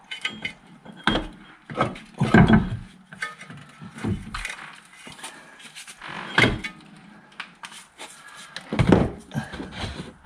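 Intermittent knocks, clunks and scrapes of metal suspension and driveshaft parts being handled and levered by hand at a car's front wheel hub, as the driveshaft is worked loose.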